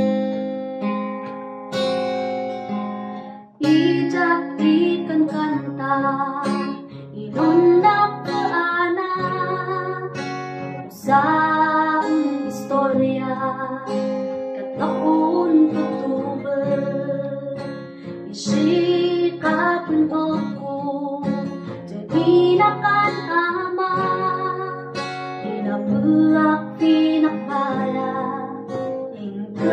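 Acoustic guitar playing chords, alone for the first few seconds, then a woman singing a song over the guitar accompaniment.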